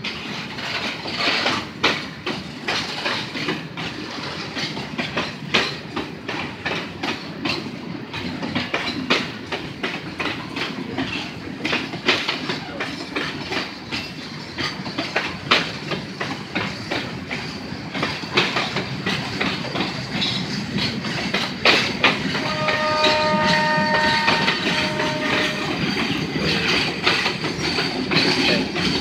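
Freight train's grain hopper wagons rolling past, their wheels clattering over the rail joints in a steady run of clicks. A train horn sounds for about three seconds, with a short break, roughly two-thirds of the way through.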